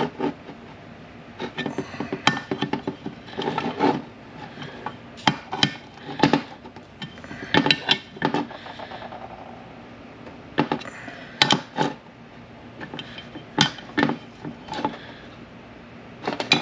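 Steel transmission parts and hand tools clinking and tapping against each other and the workbench, in irregular single knocks and short clusters.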